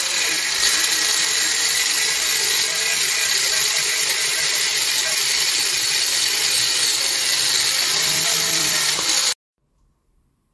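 Angle grinder with a thin cut-off disc cutting through 3-inch steel pipe, a loud steady high-pitched grinding that stops abruptly about nine seconds in.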